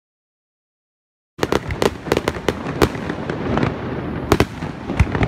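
Dead silence for about a second and a half, then aerial fireworks going off: a quick run of sharp bangs from shells bursting overhead, over steady crackling.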